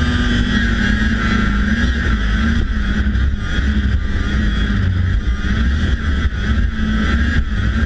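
1992 Polaris Indy Lite 340 snowmobile's two-stroke engine running while the sled rides along the trail, its pitch wavering up and down.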